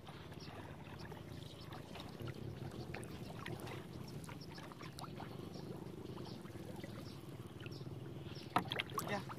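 Water splashing and trickling in short irregular splashes over a low steady hum. There are a few sharper, louder clicks near the end.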